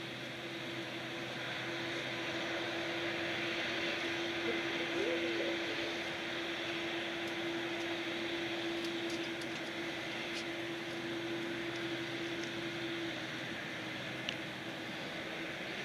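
Boeing 787's General Electric GEnx turbofan engines idling at a distance, a steady whine and rush of air. A steady low hum under it drops away about 13 seconds in.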